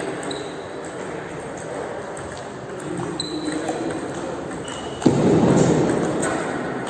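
Table tennis ball clicking off paddles and table during a rally, echoing in a large sports hall, with a couple of short high squeaks. About five seconds in comes a sudden loud burst of noise lasting about a second.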